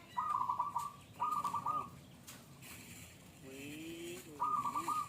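A dove cooing: short rapid trilled coos, two in quick succession near the start and another near the end. A lower, gliding call comes just before the last coo.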